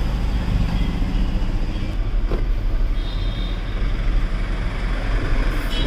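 Road traffic: motor vehicles running with a steady low rumble.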